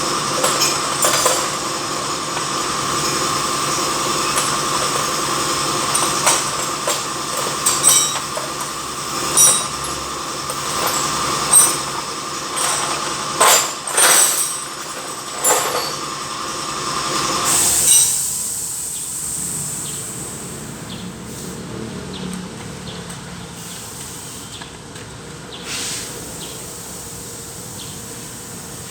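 A steady high-pitched mechanical whine with many sharp metallic clicks and clinks, which stops about two-thirds of the way through and leaves a quieter, even background.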